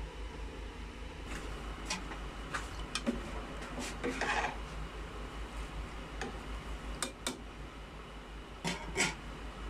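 Scattered light clinks and knocks of a metal spoon against a cooking pot, over a steady electrical hum and hiss.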